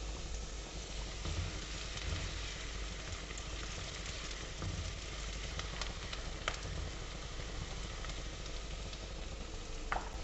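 Chopped onion sizzling steadily in hot oil in a non-stick kadai over medium flame, with a few light scrapes and taps of a silicone spatula as it is stirred.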